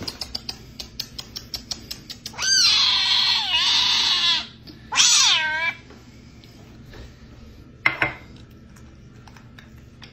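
Savannah kitten meowing: two long calls that bend in pitch, the second shorter, then a brief call about eight seconds in. A quick run of clicks comes before the calls.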